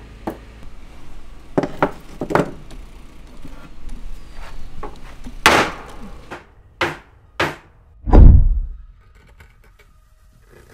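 Objects knocked and set down on a wooden workbench: a series of sharp knocks and clacks, a few seconds apart, then a heavy deep thud about eight seconds in, the loudest sound.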